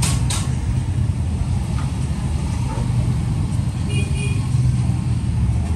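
Steady low background rumble, with two sharp clicks right at the start.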